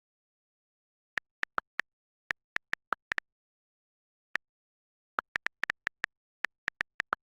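About two dozen short, sharp clicks in irregular bunches, with dead silence between them and a pause of a second or so midway.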